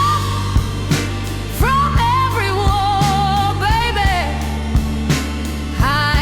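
Slow blues music: a bending, wavering lead line over steady bass notes and a regular drum beat.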